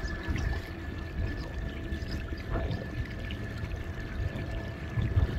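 Water splashing and lapping against a canoe hull under way on choppy water, over the steady high whine of an electric trolling motor and a low, irregular rumble.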